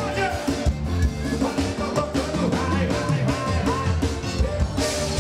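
Live forró band playing, with accordion, drums and a male lead singer.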